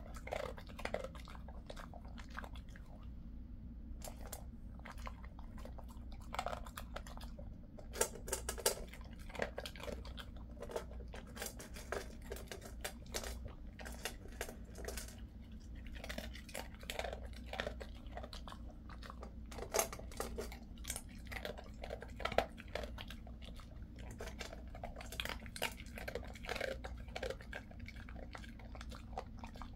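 A Jindo-mix dog chewing, with irregular crunches and bites, over a steady low hum.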